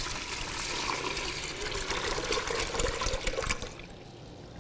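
Water being poured steadily from a plastic pitcher into a large plastic container, splashing as it fills; the pour tails off a little before the end.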